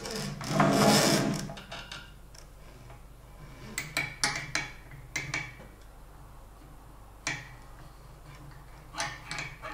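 A rustling scrape in the first second or two, then scattered small clicks and taps as the metal hose fitting and parts of an engine-block hookah are pushed and twisted into place.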